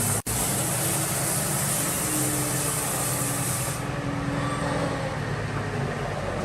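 Sawmill machinery running with a steady low hum and noise, broken by a brief dropout just after the start.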